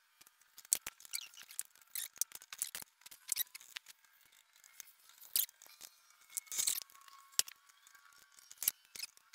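Scattered metal clicks and light knocks from a drill press's chuck and chuck key as a drill bit is loosened, swapped and tightened, with the press stopped; a few sharper clicks stand out among the fainter ones.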